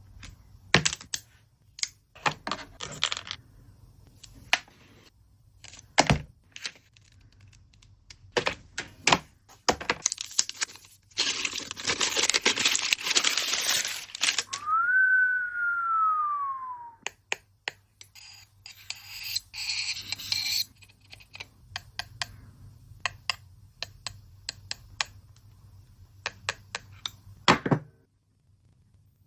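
Handling noises from a smartphone unboxing: scattered clicks and taps of the box and phone being handled, with a few seconds of tearing or rustling packaging about eleven seconds in. Just after it, a single clear tone rises briefly and then slides down over about two seconds.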